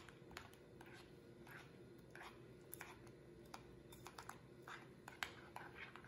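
Faint clicks and scrapes of a metal spoon against a glass mixing bowl as a thick, hot pecan praline mixture is stirred until it starts to thicken. The clicks are irregular, about one or two a second, over a faint steady hum.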